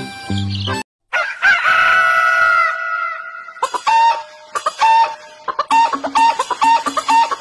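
A snatch of music, then a brief break, then a rooster crowing once in one long call about a second in. From about three and a half seconds a bouncy music track with a quick repeating figure takes over.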